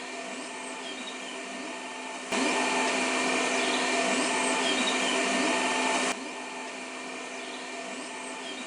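3D printer running its filament-load cycle, the feed stepper motor driving the filament through: a steady mechanical hum, with a louder stretch that cuts in abruptly about two seconds in and cuts out about six seconds in.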